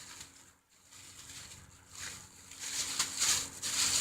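Rustling and crinkling of a package being handled and opened, growing louder after the first couple of seconds.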